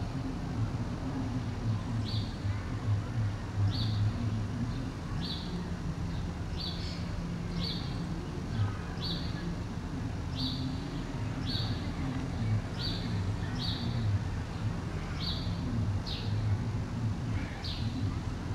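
A bird chirping over and over, short high chirps about once a second, over a steady low rumble.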